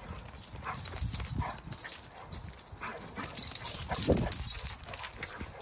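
American bully dogs playing on a concrete patio: claws clicking and scrabbling as they run, with short dog noises among them.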